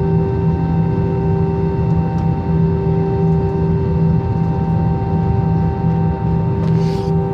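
Airbus A320 jet engines droning in the cabin: a steady low rumble under several steady tones, with a low hum that throbs evenly. A brief hiss comes near the end.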